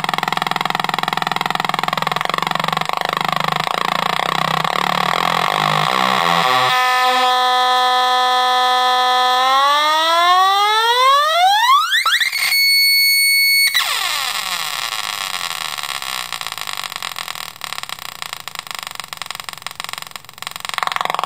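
Homemade Atari Punk Console, a 555-timer square-wave noise synth, buzzing as its knobs are turned. A rough, stepping buzz turns to a clean tone about seven seconds in. The tone glides steeply up to a high whistle, holds it briefly near the middle, then sweeps back down into a rough buzz.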